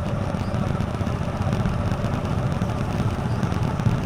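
Single-cylinder engine of a TVS Apache RTR 4V motorcycle running steadily while riding.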